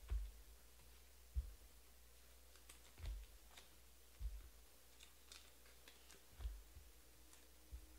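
Soft dull knocks and light clicks of trading cards being handled, sleeved and set down on a table, about six knocks a second or so apart.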